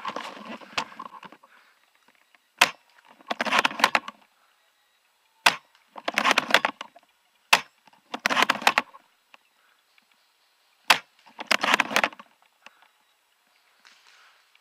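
Airsoft sniper rifle fired four times a few seconds apart, each sharp snap followed about half a second later by a short mechanical rattle, after a rustle of handling at the start.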